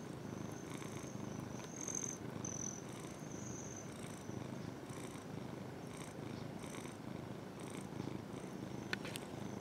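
Ginger domestic cat purring steadily, right up against the microphone.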